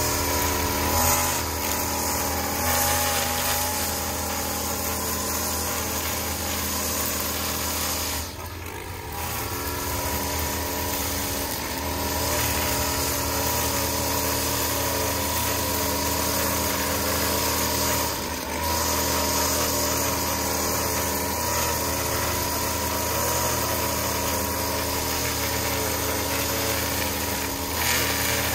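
Gas-powered string trimmer running at high throttle while edging along a concrete curb, its line cutting grass and dirt. The engine eases off briefly twice, then picks back up.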